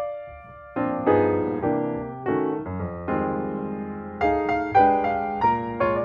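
Background piano music: struck notes and chords that ring out and fade, with a short pause just after the start.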